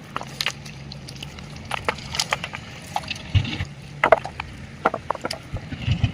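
Water splashing and dripping, with irregular sharp clicks and knocks over a low steady hum.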